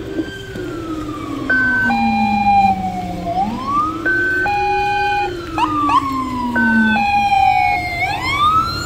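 Emergency vehicle sirens from an approaching ambulance and fire-department pickup. A slow wail rises and falls every few seconds, with a repeating two-note high-low tone over it and a few quick rising chirps about six seconds in.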